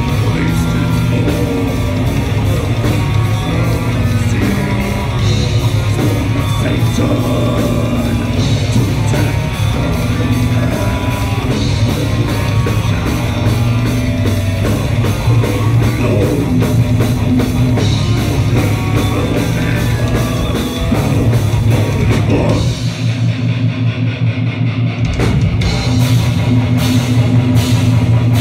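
Live heavy rock band playing loud distorted electric guitars over a drum kit. About three-quarters of the way through the drums drop out for about two seconds, then the full band comes back in.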